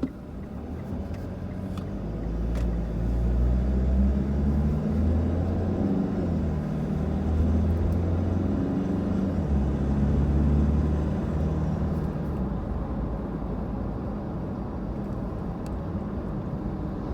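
Motor vehicle engine running with a low rumble. It grows louder over the first few seconds and its pitch rises and falls.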